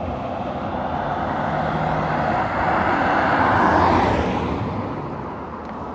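A vehicle passing by: a rushing noise that swells to its loudest about four seconds in, then fades.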